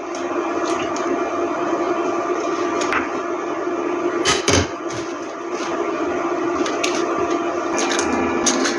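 Eggs sizzling as they fry in hot oil in a pan, with a steady low hum underneath. Several sharp clicks and taps of eggs being cracked and handled break in, the loudest about four and a half seconds in.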